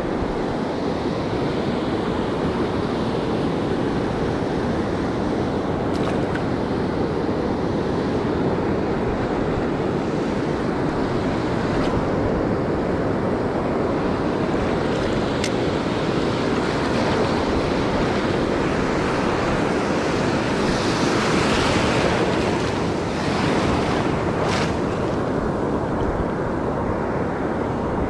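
Ocean surf breaking and washing up the beach in a steady rush, with one wave swelling louder about three-quarters of the way through.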